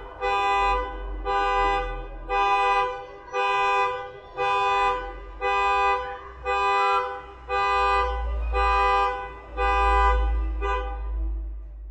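Car alarm honking the car's horn in a steady rhythm, about one blast a second, each lasting just over half a second. The last blast is cut short near the end and the honking stops.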